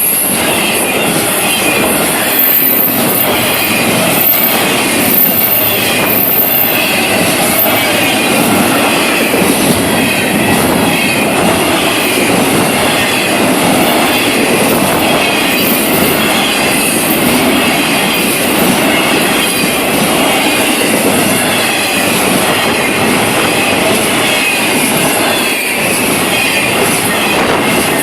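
Florida East Coast Railway freight train's cars rolling past close by, loud and steady: steel wheels running on the rails, with thin high wheel squeals coming and going, most often in the first several seconds.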